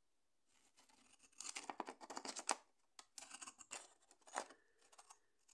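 Pinking shears (zigzag-blade scissors) cutting through paper, a run of short snipping strokes. The cutting starts about a second in and comes in a few bursts with brief pauses between them.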